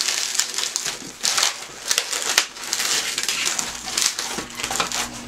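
Latex 260 twisting balloons rubbing against each other as one is wrapped around and twisted onto the others, a run of irregular rasping scrapes.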